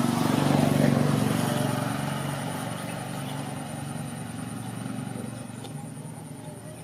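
Small motorcycle engine running, loudest about a second in and then fading away.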